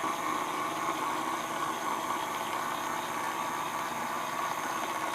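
Toy mini washing machine running steadily, its small motor turning the tub to wash a makeup sponge, with an even hum that does not change.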